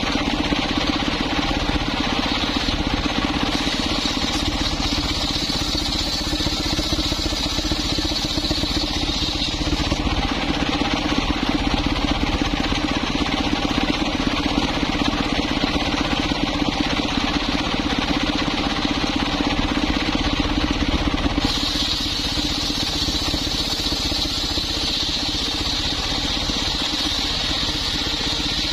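Engine-driven circular table saw running steadily while ripping coconut trunk into boards. A higher-pitched whine comes in for stretches over the steady drone, dropping out about a third of the way through and returning after about two-thirds.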